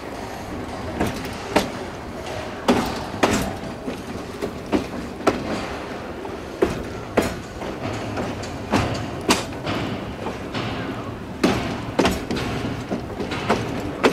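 Narrow-gauge train's wheels clacking over rail joints and yard switches as it rolls slowly, over a steady rumble. The knocks are irregular, several in pairs about half a second apart.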